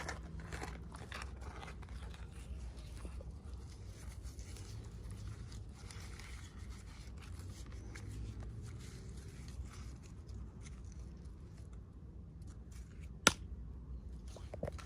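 Packaging being handled and opened: soft scraping, rustling and small clicks, with one sharp click near the end.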